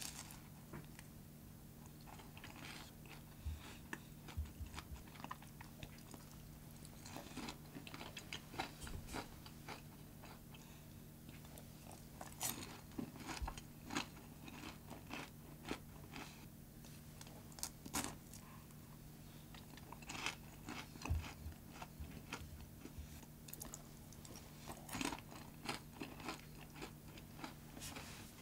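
Someone biting into and chewing crisp, flaky mini chocolate croissants made from puff pastry (frozen pie sheets). Irregular crunches and crackles of the pastry come throughout.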